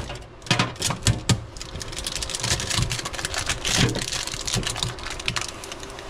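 Irregular light clicks and short rustles of hands peeling securing tape and handling the plastic fittings inside a new refrigerator.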